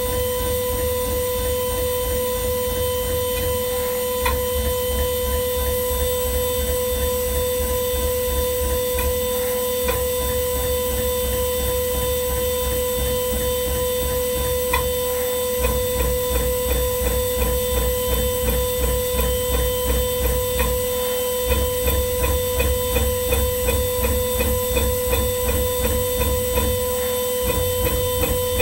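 Ringmaker 3-axis CNC jewelry milling machine drilling stone holes in a metal ring with a fine bit in its vertical spindle: a steady high-pitched spindle whine over a rapid low pulsing. The pulsing comes in stretches of about five seconds, broken by short pauses, some of them with a sharp click.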